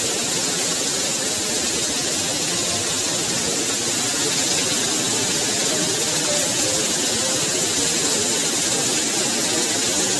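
Heavy rain pouring down on concrete, with a stream of roof runoff splashing onto the ground close by: a dense, steady hiss.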